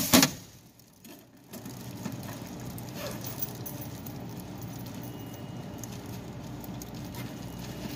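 Tap water running steadily from a faucet, turned on about a second and a half in after a short quiet gap.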